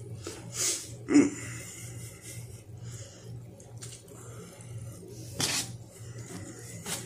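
Close-up eating sounds of a man biting into and chewing a burrito, with a few short noisy bursts, the loudest about a second in, over a steady low hum.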